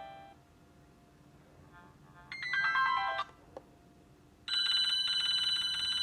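Nokia 220 mobile phone's built-in alert tones: a short run of electronic notes stepping down in pitch about two seconds in, then, about a second and a half later, a rapid pulsing electronic ringing tone that holds for a few seconds.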